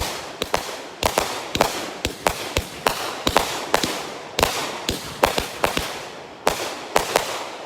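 Brothers 'Sweet Spot' consumer fireworks cake firing its finale: a rapid, uneven run of sharp bangs, two or three a second. They stop about seven seconds in, leaving a fading echo.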